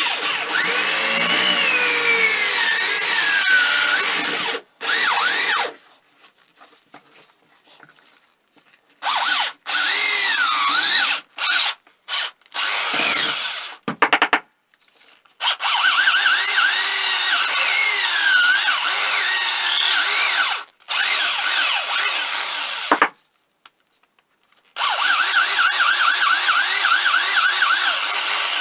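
Handheld power tool run in several bursts of a few seconds each, with short pauses between. Its pitch sags and rises as it bears on the work.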